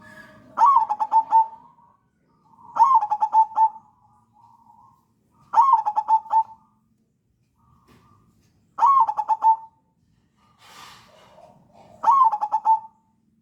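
Crossbred zebra dove (perkutut) cooing, five repeated phrases about every three seconds. Each phrase is a rising note followed by a quick run of short coos.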